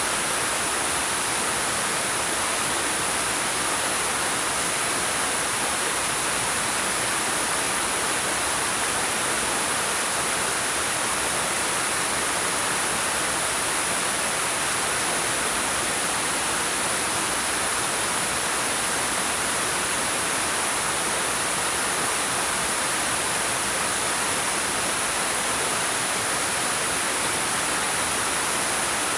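Waterfall pouring over rocks: a steady, unbroken rush of water, strongest in the upper hiss.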